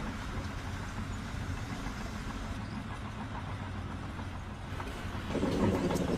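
An engine running steadily at low revs with a low hum, getting a little louder about five seconds in.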